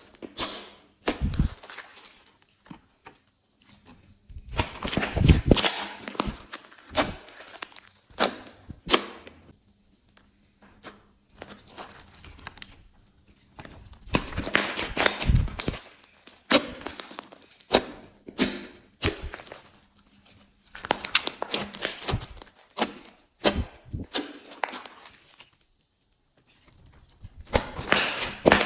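Glossy slime being worked by hand, giving irregular sticky clicks, pops and crackly squelches in bursts separated by short pauses.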